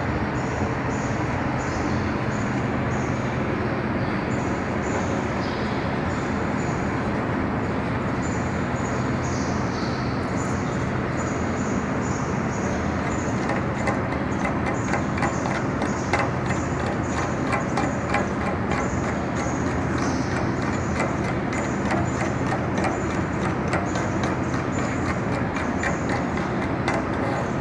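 Steady machine hum with an electrical buzz, from workshop welding equipment still running, scattered with frequent small clicks and taps.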